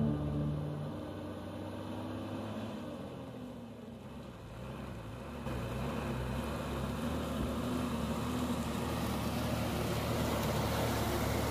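Truck engine running as the truck drives closer, getting louder about halfway through.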